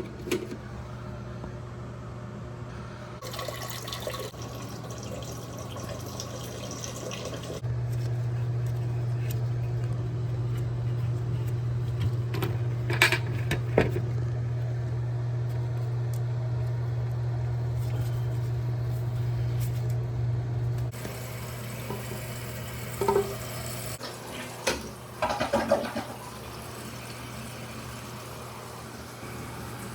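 Water running into a toilet tank through its fill valve. A steady low hum under the rushing water grows louder for a long stretch in the middle. There are a few short clunks.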